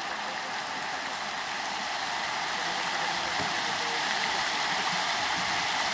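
Fountain jets spraying and splashing into the basin: a steady hiss that grows a little louder as the jets rise higher.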